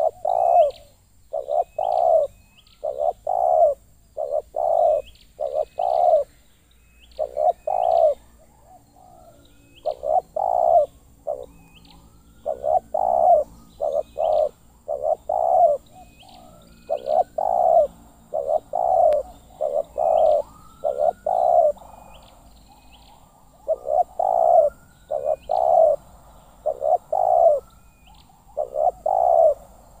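Spotted doves cooing over and over: phrases of two to four low, hoarse coo notes with short pauses between them. Faint, short, high chirps repeat behind the coos.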